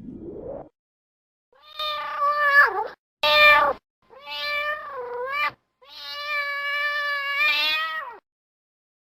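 Domestic cat meowing four times in a row, the third and fourth calls drawn out and the fourth the longest, after a brief rising tone at the start.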